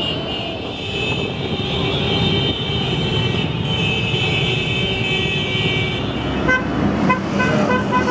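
Many motorcycle and scooter engines running together in a slow-moving convoy, heard from among the riders. Several short horn toots sound in quick succession over the last second or two.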